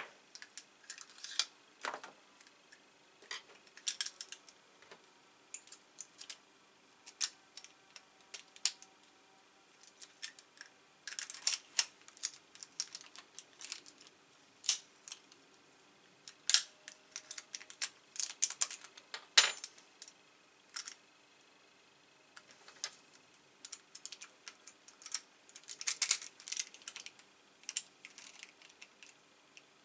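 Small metal lock parts clicking and tapping against each other as they are handled and fitted by hand, a lock cylinder going into a steel padlock body. The clicks are sharp and irregular, sometimes in quick clusters, with one louder click a little past the middle.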